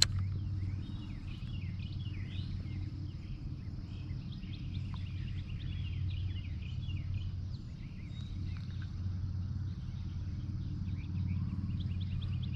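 A chorus of birds chirping and calling, many short high calls overlapping throughout, over a steady low hum. A single sharp click right at the start.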